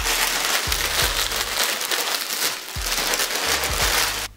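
Thin plastic polybag crinkling and rustling continuously as a garment is pulled out of it, stopping abruptly near the end.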